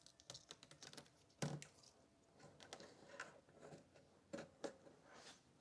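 Faint clicks and rustling as a rubber weather seal is pressed by hand onto the edge of a motorcycle trunk lid. A sharper tap comes about a second and a half in, and two more near the end.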